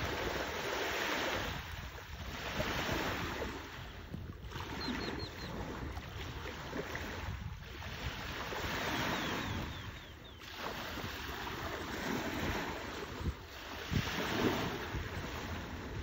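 Small sea waves washing in at the shoreline, a hiss that swells and fades every two seconds or so, with wind rumbling on the microphone.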